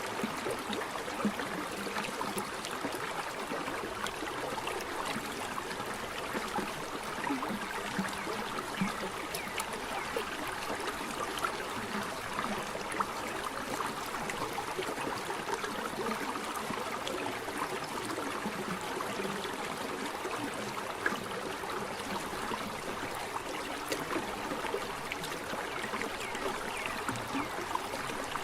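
Running water splashing and babbling steadily over rocks, in many small splashes rather than a deep roar.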